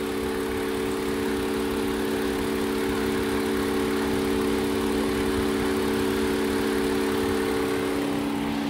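Toyota Avalon engine idling with a steady, even hum; the engine has a misfire.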